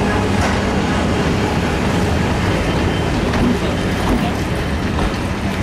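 Class 205 'Thumper' diesel-electric multiple unit rolling slowly past, its diesel engine droning steadily, with occasional wheel clicks over the rail joints.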